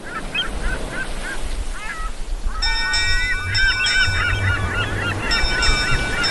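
Birds calling in quick repeated honk-like cries, joined about two and a half seconds in by steady ringing tones, over a low rumble.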